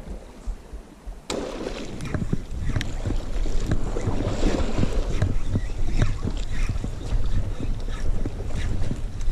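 Handling noise close to the microphone: rustling and many small knocks and clicks as the angler works the jigging rod and cranks a Shimano Sedona C5000 spinning reel. It starts suddenly about a second in, with wind on the microphone.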